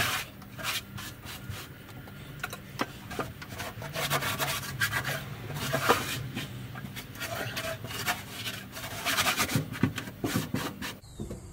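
Cloth rag rubbing back and forth over a Plymouth Duster's bare steel floor pan, wiping it down with acetone to strip grease and wax, in irregular scrubbing strokes.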